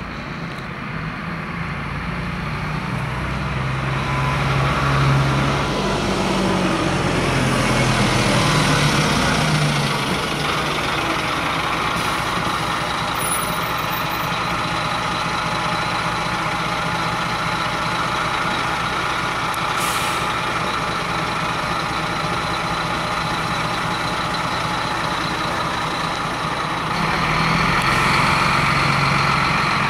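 Diesel bus engine running close by: its pitch falls over a few seconds as the bus slows, it then runs steadily, and it grows louder again near the end.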